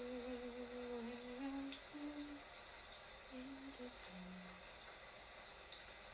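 A person softly humming a slow tune: a long held note, then a few shorter notes, stopping about four and a half seconds in.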